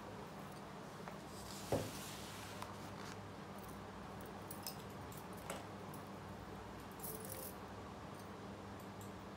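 Faint handling noise of the paper or the recording phone being turned: a soft knock about two seconds in and a few lighter clicks and rustles, over a steady low hum.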